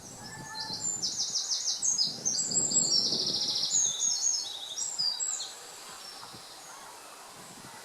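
A small songbird singing one long, fast song of high trills and quick varied phrases, lasting about five seconds and stopping a couple of seconds before the end.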